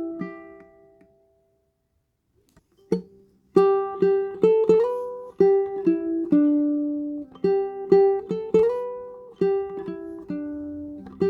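Plucked string instrument, tenor in range, played note by note. A ringing note fades into a pause of about two seconds. A single note sounds about three seconds in, and then a melody of picked notes runs on over a sustained lower note, with a couple of upward slides.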